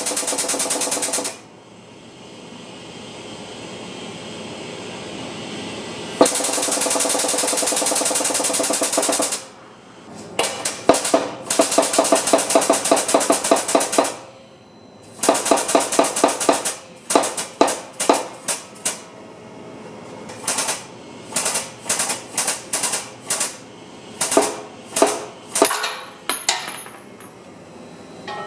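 Impact wrench hammering in bursts: several runs lasting a few seconds each, then a string of short bursts in the second half, as nuts are run down and tightened.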